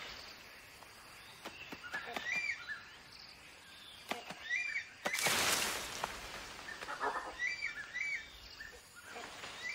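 Tropical forest ambience: a bird repeats a short, arched two-note call every two to three seconds, over a soft background hiss. About five seconds in there is a brief rushing rustle, like leaves and branches being shaken.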